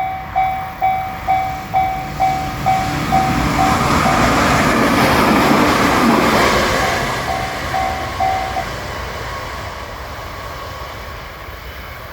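Railroad crossing bell ringing about twice a second as a JR Shikoku 7000 series electric train passes. The train's noise swells to a peak in the middle and drowns the bell, which stops about eight and a half seconds in. The train then fades away.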